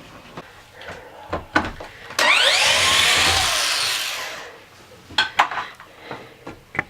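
Wooden interior panelling being pried and ripped out: scattered knocks and cracks, then a loud rasping tear of about two seconds, with rising squeals, starting a little after two seconds in, then more knocks.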